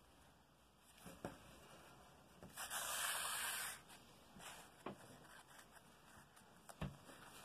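Hand-basting a fabric collar: sewing thread drawn through cloth makes a faint rasping pull about a second long near the middle, with light rustles and a few soft taps of hands and fabric on the table.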